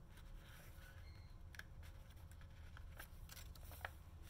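Faint rustling of paper journal pages being turned by hand, with a few soft clicks and ticks from the stiff pages.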